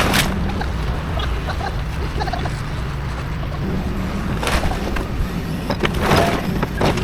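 Excavator's diesel engine running steadily under a few sharp crashes and cracks of building debris being torn down and dropped.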